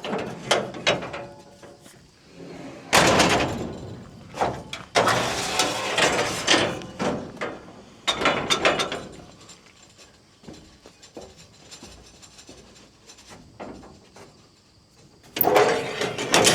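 A wrench at work on the combine's battery clamp nuts: several bursts of clicking and metal clatter, with quieter pauses between them.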